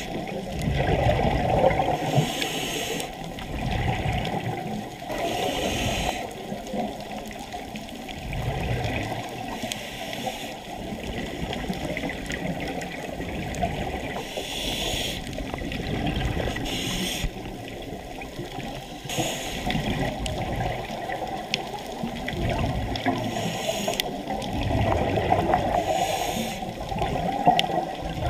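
Muffled underwater noise heard through a camera housing, with recurring bursts of scuba regulator exhaust bubbles every few seconds at uneven spacing.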